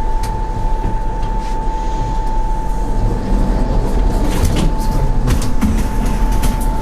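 Toshiba Elemate New Luminous elevator's announcement speaker giving off a steady, ship's-horn-like 'pooo' tone, an abnormal noise typical of this model. Under it is a low rumble, and a few sharp clicks come in about halfway through.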